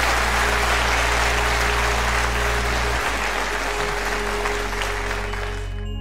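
Audience applauding a snooker shot, dying away near the end, over a steady background music track.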